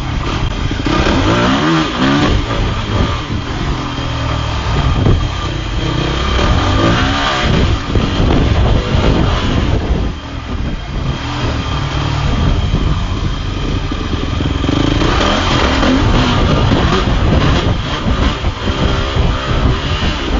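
Dirt bike engine being ridden hard, revving up and falling back again and again, with its pitch climbing in sweeps about two seconds in, around seven seconds and again near sixteen seconds.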